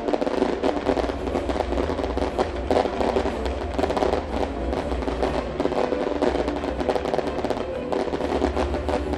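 Fireworks crackling and banging in quick succession over loud Celtic-style music from the show's sound system.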